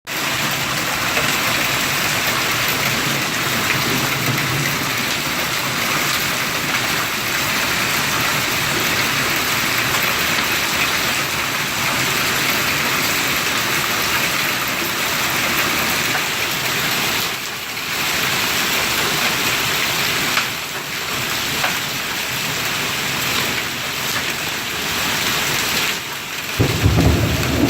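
Hail coming down hard, a dense steady clatter of hailstones striking surfaces, with a low rumble starting near the end.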